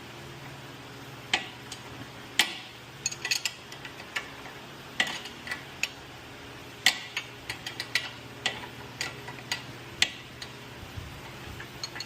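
Hand tools clicking and clinking against steel suspension parts, in irregular sharp taps, during work on a car's front lower control arm, over a steady low hum.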